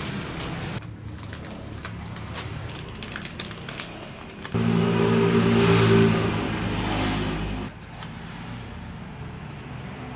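Plastic flour bag crinkling with small clicks as it is handled and cut open. Then a loud, steady engine sound runs for about three seconds, starting and stopping abruptly.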